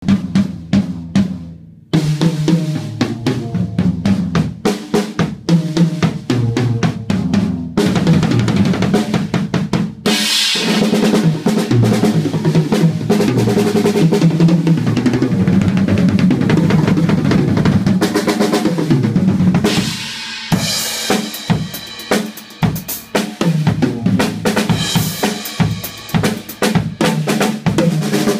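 Acoustic drum kit played in a continuous groove, with kick drum, snare and cymbals, close-miked for recording. The playing breaks off briefly about two seconds in, and from about ten seconds the cymbals are hit harder and wash more brightly.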